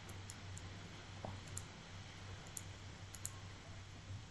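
Faint, irregular clicks and taps of a pen stylus on a tablet as a word is handwritten, over a low steady hum.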